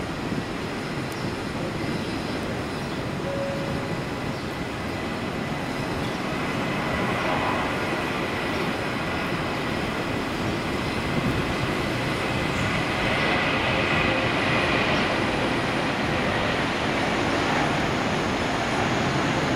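Airbus A320-232's twin IAE V2500 turbofan engines at takeoff thrust during the takeoff roll: a steady roar with a thin high whine, growing louder as the jet accelerates toward the camera.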